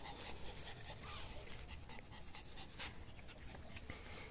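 Yorkshire terrier panting faintly, worn out after a long spell of play.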